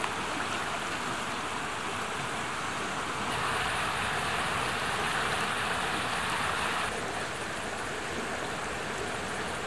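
River water rushing steadily over stones, a little louder in the middle.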